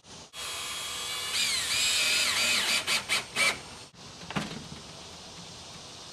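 Cordless screw gun driving a screw through the storm door's hinge-side track: the motor whines, its pitch dipping and rising as the screw bites, then runs in a few short stop-start pulses before cutting off at about four seconds. A single click follows.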